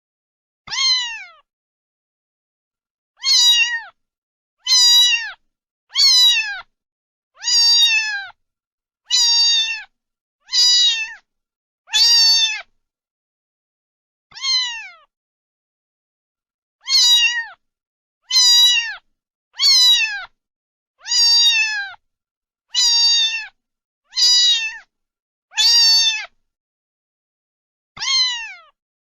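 A cat meowing over and over, about seventeen short, high meows, each falling in pitch, mostly a second or so apart with a few longer pauses.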